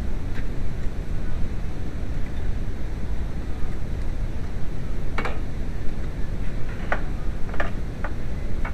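VW New Beetle's 2.0L AEG four-cylinder engine running with a steady, uneven low rumble. A few light clicks come in the second half.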